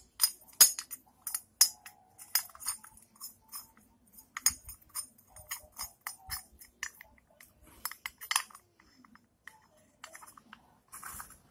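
Irregular small metallic clicks and clinks as painted metal covers are handled and pressed onto a Honda EX5 cylinder head by hand, with a short scraping hiss near the end.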